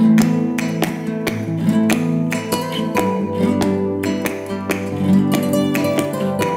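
Background music: acoustic guitar strummed in a quick rhythm.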